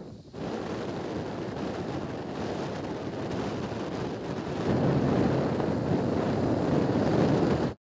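Wind rushing over the microphone of a moving motorcycle: a steady rushing noise that grows louder about five seconds in, then cuts off abruptly near the end.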